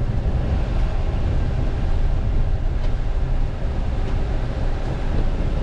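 Steady low rumble of a moving vehicle, with no clear events standing out.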